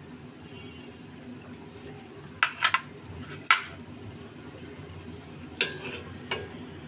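A cooking utensil knocking against a steel wok while fritters are turned in hot oil: a quick run of three clinks about two and a half seconds in, then three single knocks spread through the rest. Under them is a low, steady bubbling of the frying oil.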